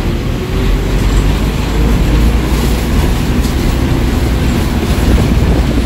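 Bus driving along, heard from inside the cabin: a steady, loud low rumble of engine and road noise, with a faint engine whine drifting in pitch.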